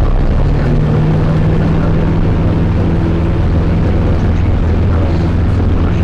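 Zetor 7011 tractor's four-cylinder diesel engine running steadily while driving, heard from inside the cab.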